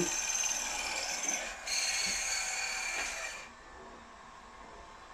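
Drilling machine's motor and spindle running with a steady whine, dipping briefly about a second and a half in, then switched off about three and a half seconds in.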